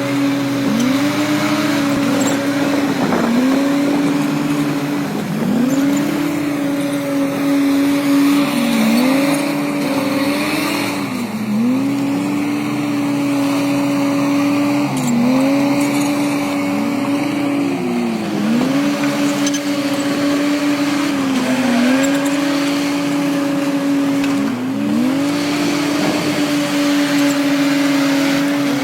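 Heavy earthmoving machine's diesel engine running hard, its pitch dipping and climbing back every two to three seconds as it takes and sheds load.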